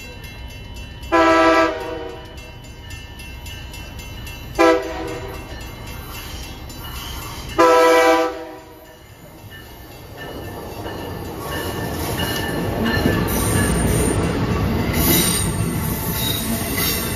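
Amtrak Acela high-speed trainset sounding its horn three times (a longer blast, a short one, then the longest), then rolling into the station with a rumble of wheels on rail that grows steadily louder, with some high wheel squeal near the end.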